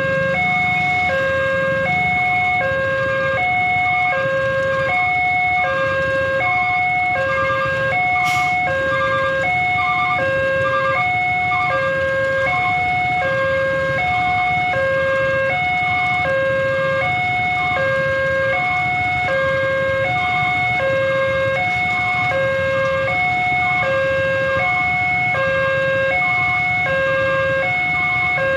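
Railway level-crossing warning alarm sounding with the barrier down: an electronic two-tone signal alternating steadily between a low and a high tone about once a second, the warning that a train is approaching. Waiting traffic idles underneath, with a single sharp click about eight seconds in.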